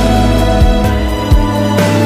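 Background music: an instrumental passage of a pop-rock song, with steady bass, held chords and regular drum beats.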